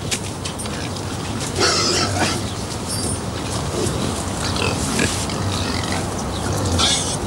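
Pigs squealing and grunting, with louder squeals about two seconds in and again near the end.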